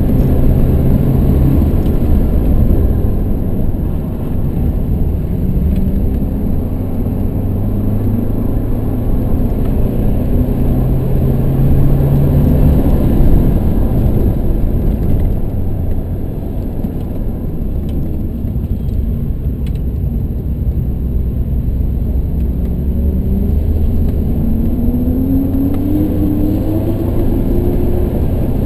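BMW 118d's four-cylinder turbodiesel engine heard from inside the cabin while driven hard, its note rising with the revs and dropping back at gear changes, with a clear climb in revs near the end. Steady road rumble runs underneath.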